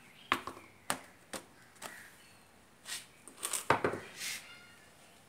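Four sharp knocks, then a cluster of knocks and a scrape about three to four seconds in, as a three-wheeler's removed tyre and wheel and a wooden block are handled on a concrete floor.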